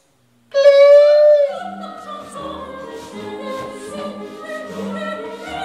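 Opera music: after a brief silence, a loud sung note is held for about a second, then gives way to softer orchestral accompaniment with sustained notes.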